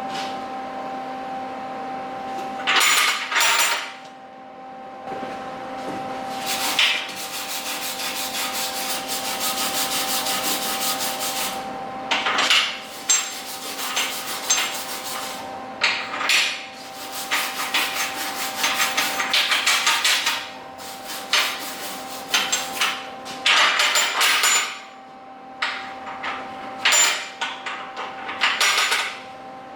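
Welding D-rings onto steel skid steer forks: bursts of welding crackle, some short like tacks and some running several seconds as beads, with brief pauses between them. A steady electrical hum runs underneath.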